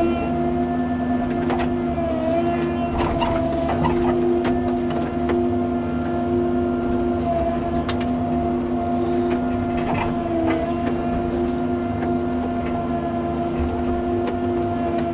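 Cat 309 CR mini excavator's diesel engine and hydraulics running at a steady speed, with a whine whose pitch dips briefly twice, and occasional light knocks.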